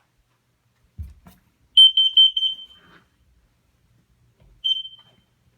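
Smoke alarm sounding its test: a quick run of about five shrill beeps, then one more beep near the end. A dull thump comes about a second in.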